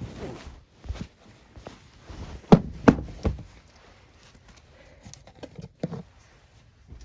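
Items being handled and set down on a table: scattered knocks and taps, the loudest three coming in quick succession around the middle.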